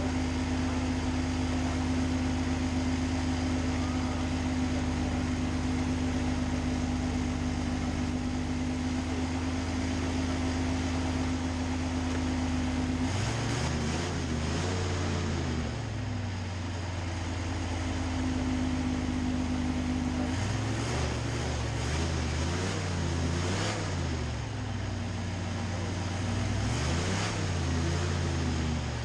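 Racing hovercraft engine and fan running at a steady idle, then revved up and down, the pitch rising and falling, about halfway through. It settles briefly, then revs again repeatedly in the last third.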